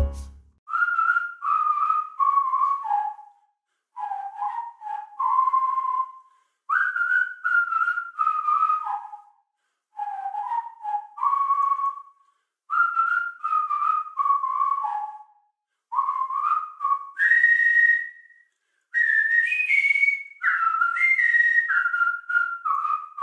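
A person whistling a melody in short phrases of a few seconds each, the notes sliding into one another and the phrases mostly falling in pitch, with short pauses between; the tune climbs higher near the end before falling again.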